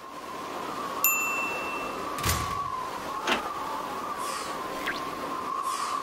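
Edited-in end-screen sound effects: a steady, slightly wavering electronic hum, a bright ding about a second in, two sharp hits, and two falling whooshes near the end.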